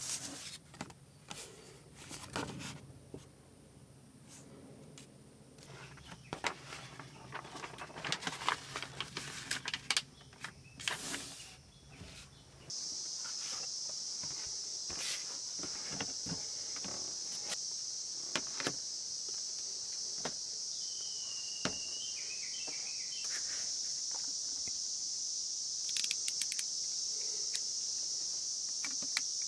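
Scattered clicks and knocks of handling over a faint low hum. About thirteen seconds in, this cuts to a steady, high-pitched chorus of night insects, with a short bird-like chirp partway through.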